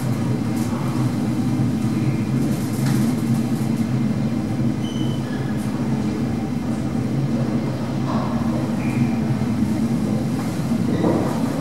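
Steady rumbling hum of a KONE EcoDisc gearless traction lift car in motion between floors, heard from inside the car.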